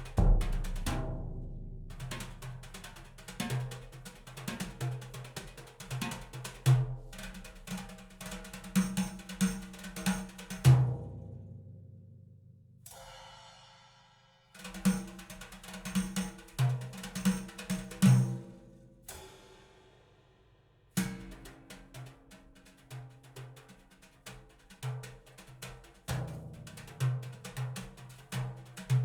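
Drum-led percussion music, with bass drum and snare hits, played back through Elfton Vegas II four-way loudspeakers in a room. The playing breaks off twice, letting the hits ring and decay before it starts again.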